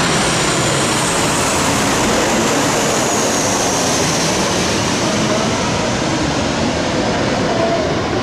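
Passenger plane landing: a loud, steady roar of engines and rushing air, with a faint high whine that slowly falls in pitch.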